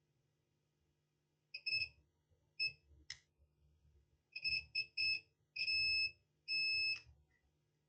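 Digital multimeter's continuity buzzer beeping on and off as the probes touch a MOSFET's pins: a few short beeps, then two longer ones near the end. The beep signals a short reading across the MOSFET, which shares the reading with its paralleled neighbour.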